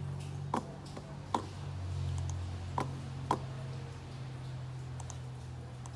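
Computer mouse clicking: four sharp single clicks, the last two about half a second apart, over a steady low hum.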